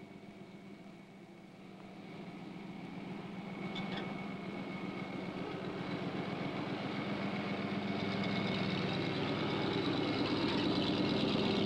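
Pickup truck engine running at low speed as the truck drives through loose ash on a dirt road, growing steadily louder as it draws close.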